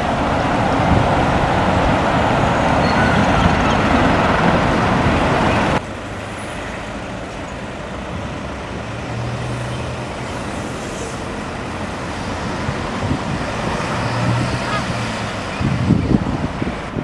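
Road traffic at a junction: cars and small single-deck buses moving through, with a steady traffic noise. About six seconds in it cuts to a quieter scene where a bus engine's low hum rises and falls twice, and wind rumbles on the microphone near the end.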